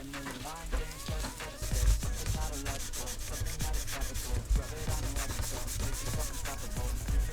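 Rapid, repeated abrasive rubbing strokes, like sanding by hand, settling into a steady back-and-forth about a second and a half in.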